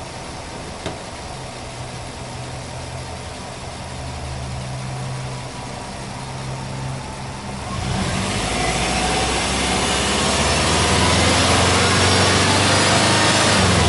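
Subaru Impreza WRX's turbocharged flat-four boxer engine idling, then free-revved from about eight seconds in and held at higher revs.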